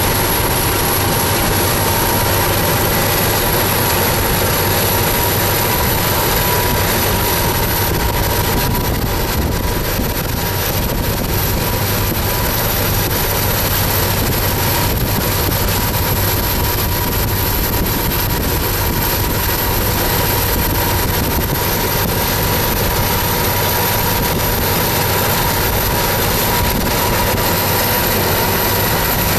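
Diesel-electric freight locomotives running loud and steady at close range, with a steady high whine over the engine noise.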